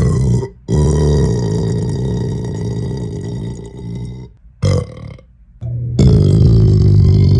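A man burping loudly and deeply several times: a short burp, then a long drawn-out one lasting about three and a half seconds, a brief one, and another loud burp starting about six seconds in.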